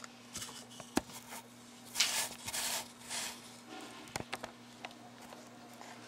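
Handling of take-apart bird ornament pieces: a few sharp clicks and bursts of soft rustling as small parts are picked up and fitted together, over a faint steady hum.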